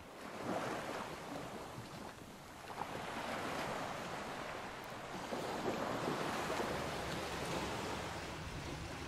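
Rushing, churning water of a boat's wake behind the stern, with wind buffeting the microphone. The rush swells in the first half-second, dips briefly about two and a half seconds in, then holds steady and louder.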